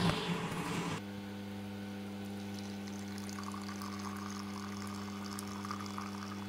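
Automatic bean-to-cup coffee machine brewing: a louder, rougher noise for the first second settles into a steady pump hum while coffee streams onto ice in a glass jar.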